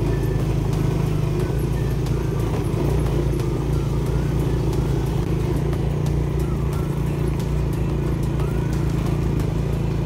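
Motorcycle engine running steadily while riding, heard as a constant low rumble.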